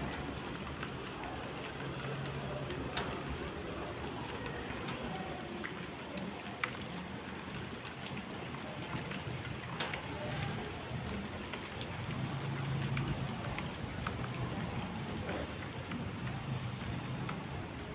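Steady rain falling, with scattered sharp drip ticks throughout.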